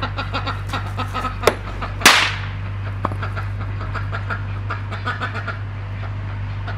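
A hammer blow sets off a pea-sized drop of MEKP (methyl ethyl ketone peroxide) on concrete with one sharp crack about two seconds in, trailing off in a brief hiss. A lighter click comes half a second before it.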